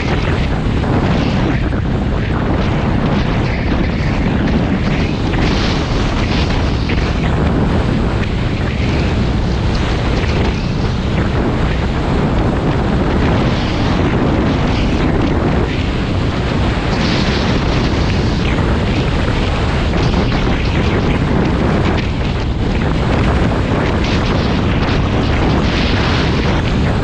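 Dirt bike running along a rough dirt track, its engine mixed with heavy wind buffeting on the helmet-mounted microphone, a steady loud rumble.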